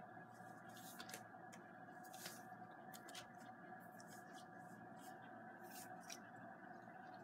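Faint light scratching and clicking of small kittens' claws on a corrugated cardboard scratcher house, irregular little scrapes every half second or so over a quiet steady room hum.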